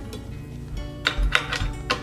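Metal spoke wrenches clinking as they are sorted through, with a few sharp clicks about a second in and near the end, over quiet background music.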